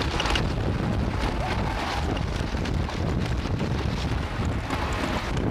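Wind buffeting the microphone, with a loud, steady low rumble from a wooden roller coaster train running along its track.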